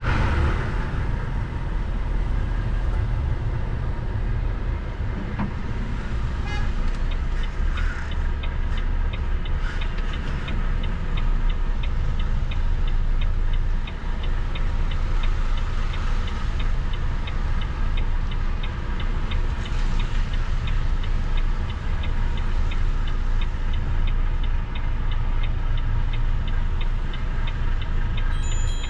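Steady low engine and road rumble inside the cab of a large vehicle driving at low speed. About six seconds in, a regular, fast ticking from the cab starts and keeps going, and a short high beep sounds near the end.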